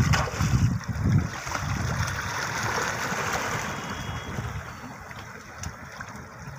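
Seawater lapping and washing against shoreline rocks, with a few low thumps in the first second and a half. The rushing wash eases off toward the end.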